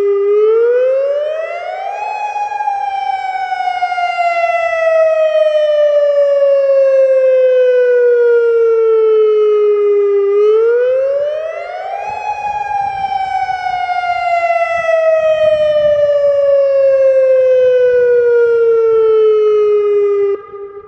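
Federal Signal Modulator 3012 outdoor warning siren sounding a wail. Its pitch rises over about two seconds and falls slowly over about eight, twice. Its loudness drops sharply just before the end.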